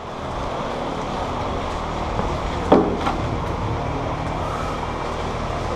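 Steady background noise with a sharp crack about two and a half seconds in, followed shortly by a fainter click.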